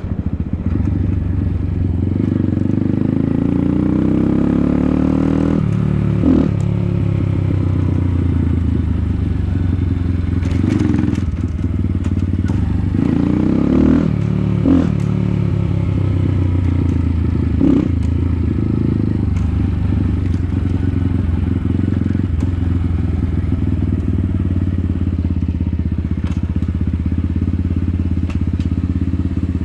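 Motorcycle engine running as the bike is ridden, revving up twice with a rising pitch, a few seconds in and again around the middle, with a few short sharp clacks in between.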